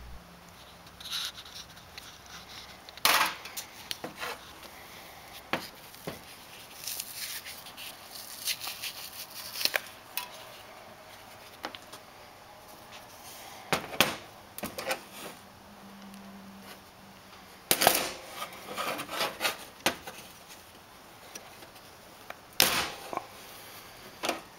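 Metal parts of a waste oil burner's nozzle line assembly and hand tools clinking and knocking on a metal workbench as the assembly is taken apart by hand. Scattered light clicks, with a few louder knocks spread through.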